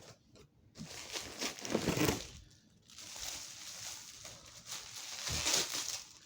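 Packaging rustling and crinkling as items are handled and pulled out of a parcel, loudest about two seconds in and again near the end.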